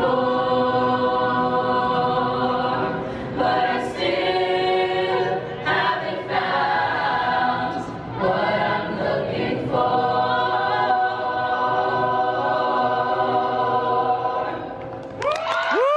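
Choir singing held chords in phrases, with short breaths between them. Near the end a single voice slides up in pitch.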